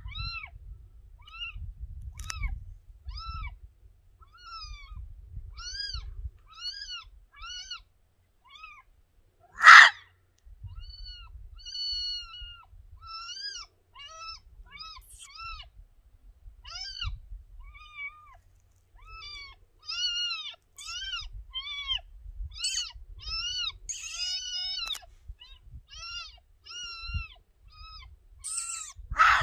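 Grey fox barking: a long run of short, high, arched yips, about one or two a second. About ten seconds in there is one much louder, sharp sound.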